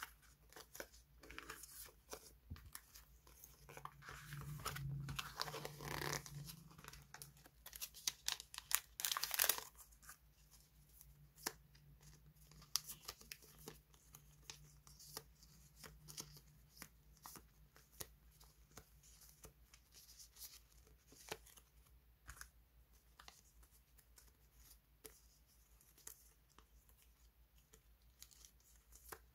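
Hands sifting through and handling a bundle of die-cut paper stickers: crisp rustling and crinkling with scattered small clicks, busiest and loudest in the first ten seconds and lighter after.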